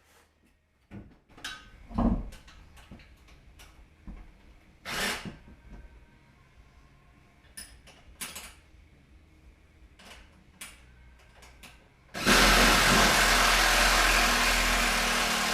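Tools and parts being handled on a workbench: scattered clicks and knocks, then a loud continuous noise that starts suddenly near the end and keeps going.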